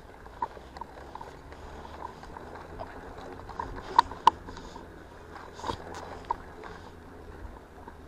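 Bicycle riding on an asphalt path, heard from a camera on the handlebars: a steady low rumble of the tyres with scattered light clicks and rattles, and two sharp knocks about four seconds in.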